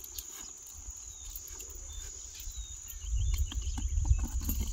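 Insects chirring in a steady high-pitched drone, with scattered faint clicks. About three seconds in, a low rumble swells up and becomes the loudest sound.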